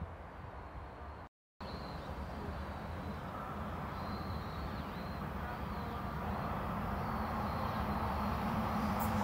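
Train approaching along the line, its rumble growing steadily louder, after a brief dropout near the start.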